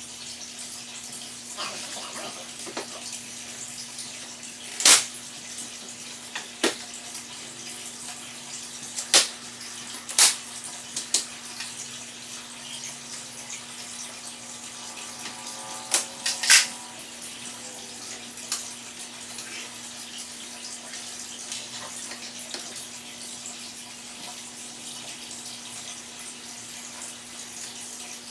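Steady hiss with a faint low hum, broken by a few sharp clicks and knocks, two of them close together about two-thirds of the way through.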